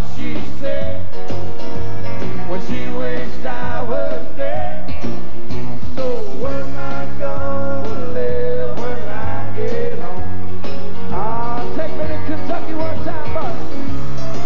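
Live country-rock band playing: a bass line stepping between notes, regular drum beats, and a lead melody that bends and slides in pitch.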